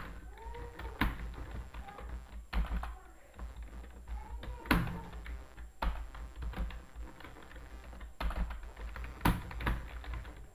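Irregular typing taps on a mobile phone's on-screen keyboard, with a few sharper clicks roughly a second apart among softer ones.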